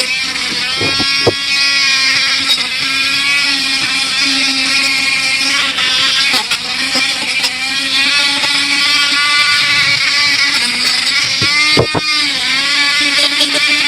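A high-speed power-tool motor runs steadily, its pitch dipping and recovering as it is loaded, with a few sharp knocks about a second in and again near the end.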